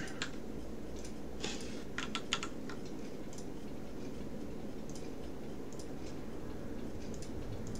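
Computer keyboard and mouse clicks: a quick cluster about a second and a half in, then a few scattered single clicks, over a steady low room hum.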